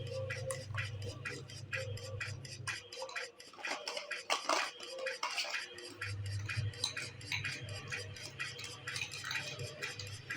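A metal spoon clinking and scraping against a cup or dish in quick, regular light clicks. A low hum drops out about three seconds in and comes back about six seconds in.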